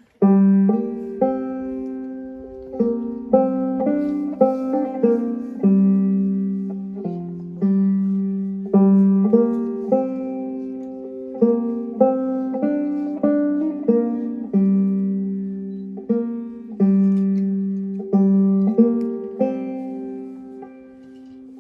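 Clawhammer-style banjo playing a slow tune: plucked notes, about one to two a second, each ringing and decaying over a steady sustained high note. The playing starts abruptly at the beginning and tails off toward the end.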